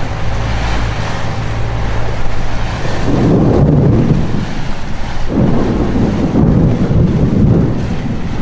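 Close thunder rolling in two long rumbles, one about three seconds in and one about five seconds in, over a steady low hum.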